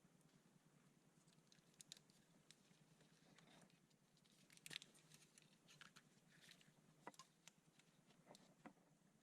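Near silence, with a faint scattered run of small clicks and ticks.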